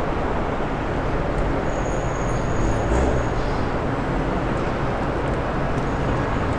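Car on the move: steady engine and road noise with a low rumble, swelling slightly about three seconds in.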